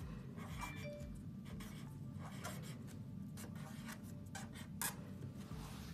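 Marker pen writing letters on a paper strip: a run of faint, short pen strokes, with one louder stroke about five seconds in.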